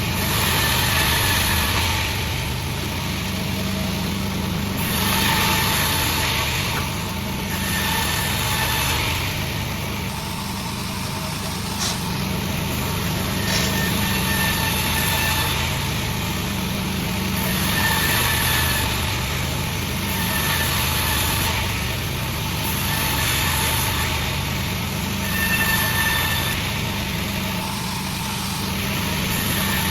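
Sawmill saw running steadily on its engine drive, with a louder rasping hiss every couple of seconds as the blade cuts through the log.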